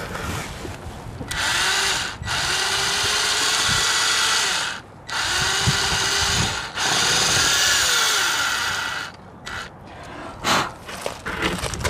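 Metabo cordless drill running in four bursts, its motor speeding up and slowing down each time, as the bit is worked into a wooden window frame's weep hole to clear out the earth an insect has packed into it. A few small knocks and clicks follow.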